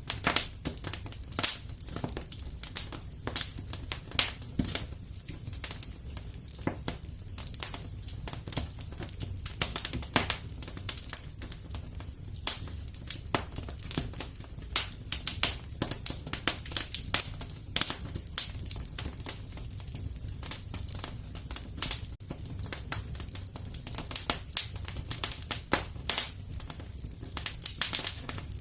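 Wood fire crackling in a fireplace: irregular sharp snaps and pops, several a second, over a low steady rumble.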